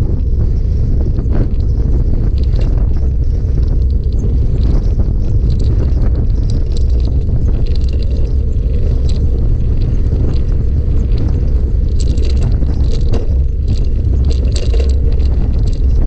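Bicycle ride noise heard from a microphone on the move: a loud, steady low rumble of wind and tyres, with scattered rattles and clicks from the bike that come more often near the end.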